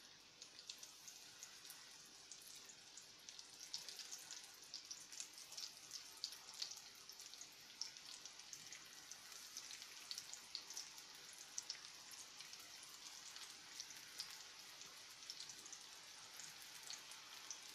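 Breaded cabbage-and-mushroom cutlets frying in hot oil in a frying pan: a faint, steady sizzle full of small crackling pops.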